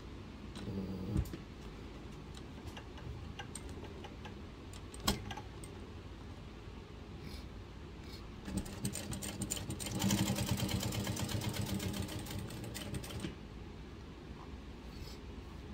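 Juki 8700 industrial flat-bed lockstitch sewing machine stitching leather. It runs in one fast burst of stitches from a little past halfway until near the end, after a few single sharp clicks in the first seconds.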